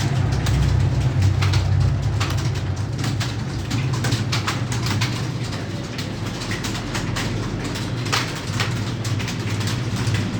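Computer keyboard typing: a fast, irregular run of key clicks over a steady low hum.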